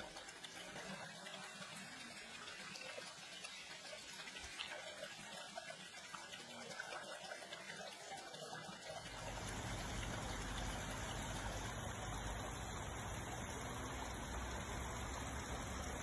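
Water running steadily from the pipe spouts of a stone fountain and splashing into its basin, a continuous rushing that becomes louder and deeper about nine seconds in.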